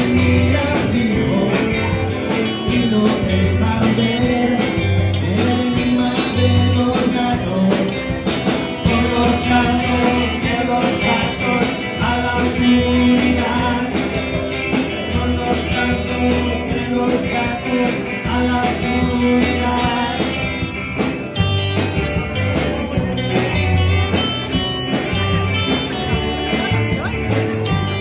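Live rock band playing: amplified electric guitars, bass and a drum kit, played loud with a steady beat.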